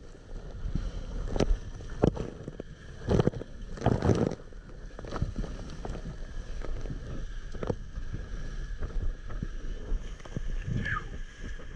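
Hobie Cat 16 catamaran hull slicing through the water at speed: a steady rush of water with several sharp splashes of spray and waves slapping the hull, mostly in the first half, and wind on the microphone.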